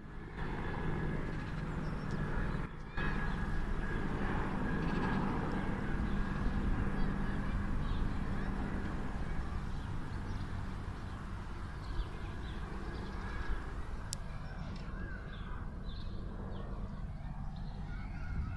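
Crows cawing over a steady low outdoor rumble, with a sharp click about fourteen seconds in.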